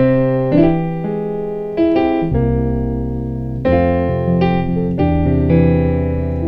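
Piano playing a gospel chord movement: about eight sustained chords struck one after another, each left ringing, moving through the 6 chord (A7) toward the 2 chord, D minor.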